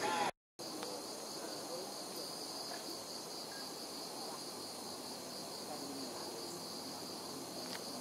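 Chorus of night insects trilling steadily at several high pitches with a faint pulsing. It begins after a brief break in the sound near the start.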